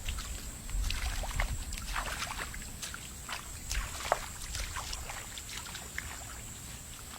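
Shallow muddy water sloshing, with many small irregular splashes and drips.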